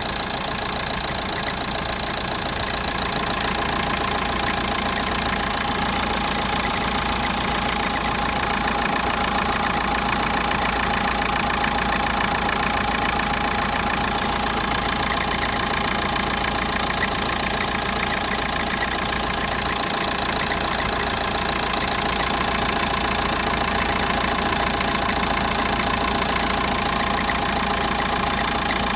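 Renault K9K 836 1.5 dCi four-cylinder diesel engine running steadily, with an extraneous noise in its running that the owner wants identified.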